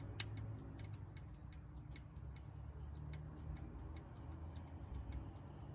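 Faint sharp snaps of an ignition spark, unevenly spaced at about three a second, as the new MSD coil's high-tension lead sparks to ground each time the distributor points open on a 1950 Ford flathead V8. It is the sign that the ignition is now making spark.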